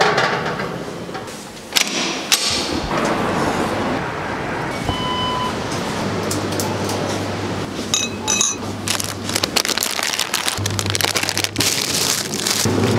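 Background music with a steady low bass line, over short clicks and rustles.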